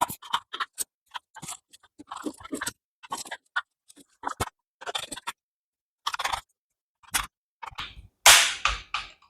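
A laptop's bottom cover being pressed back onto the chassis, its clips snapping into place in a string of sharp, irregular clicks, the loudest about eight seconds in.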